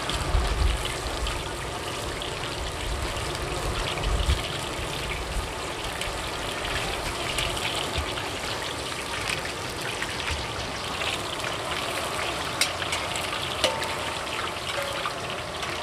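Eggplant cubes deep-frying in a wok of hot oil: a steady crackling sizzle. A few sharp metallic clicks come in the second half as the wire strainer and ladle knock against the steel wok, with a couple of dull bumps in the first few seconds.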